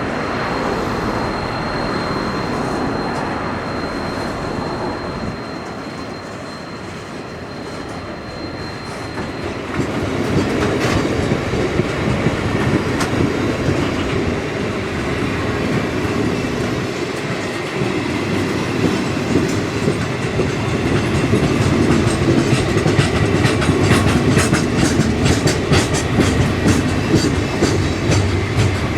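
A train rolling past, with a steady rumble and a thin high whine for the first third, then growing louder from about a third of the way in, its wheels clicking in quick succession over the rail joints, the clicking thickest near the end.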